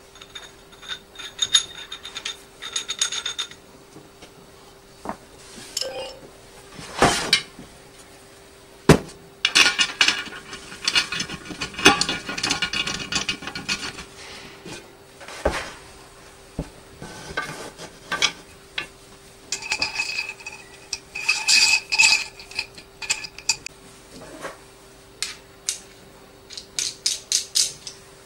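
Metal parts of a microscope table stand clinking, knocking and scraping as it is assembled: the steel pillar and heavy base plate handled and fitted together, with a quick run of light ticks near the end. A faint steady hum sits underneath.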